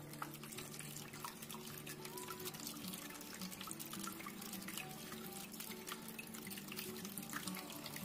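A small cement tabletop waterfall fountain running: a steady stream of water trickles and splashes from a tilted pot into a pebble-filled pot below.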